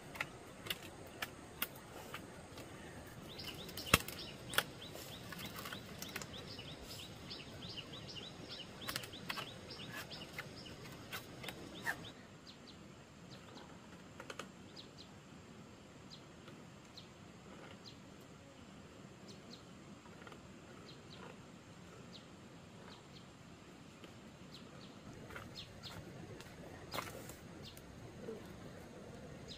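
Faint outdoor background with scattered light knocks and clicks, the sharpest about four seconds in. From about three seconds to about twelve seconds a rapid, evenly repeated high chirping trill runs over it, then stops.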